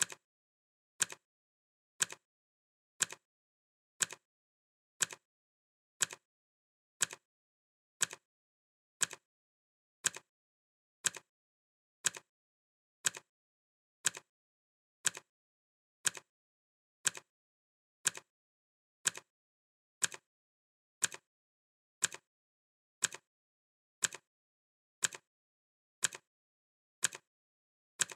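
Clock ticking sound effect: one short, sharp tick every second, each tick a quick double click.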